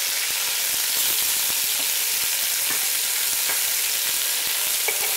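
Mushroom caps frying in hot oil in a cast-iron Dutch oven: a steady, loud sizzle with steam rising.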